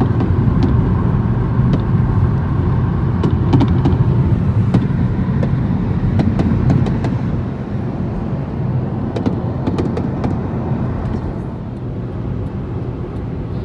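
Steady road and engine rumble inside a moving car's cabin, with scattered sharp pops of fireworks going off around it.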